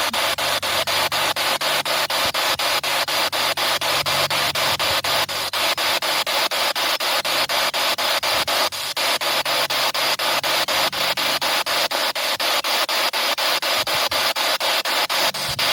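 Spirit box sweeping through radio frequencies: a steady hiss of static chopped by about five clicks a second as it jumps from channel to channel.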